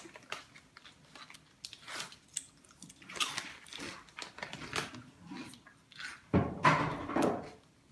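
Scissors cutting into a rubber balloon, with handling of the latex: irregular crisp snips and crunchy scrapes, loudest about six and a half seconds in.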